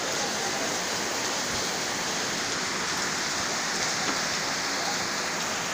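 Heavy rain falling on a paved alley and running off the rooftops, a steady hiss.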